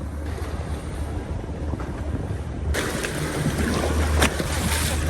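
Boat engine running under way, a steady low drone, with rushing wind and water noise that grows suddenly louder about two and a half seconds in.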